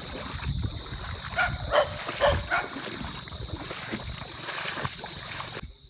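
A dog barking a few times about a second and a half to two and a half seconds in, over a steady high-pitched insect drone and low rumbling noise; the drone cuts off shortly before the end.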